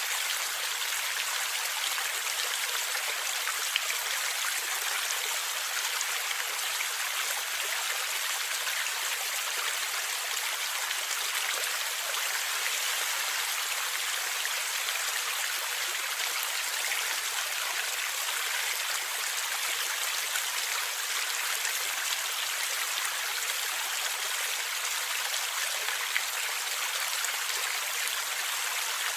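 A river flowing and gurgling over its bed: a steady, unbroken rush of water with faint small splashes.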